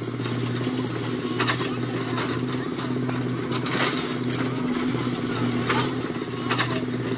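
Tata Hitachi EX130 excavator's diesel engine running at a steady working pitch as the machine swings its boom and bucket, with a few short knocks over the drone.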